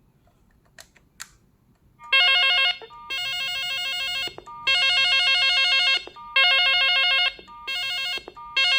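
Electronic ringer of an ECG-500 corded desk telephone ringing in repeated warbling phrases, some louder and some softer, starting about two seconds in after two faint clicks; the ringer is being tested at its volume setting.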